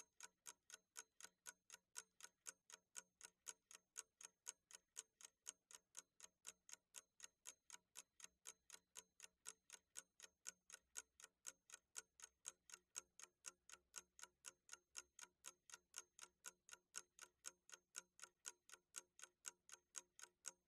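Faint, steady clock-ticking sound effect, about three even ticks a second, serving as a countdown timer while the puzzle is shown.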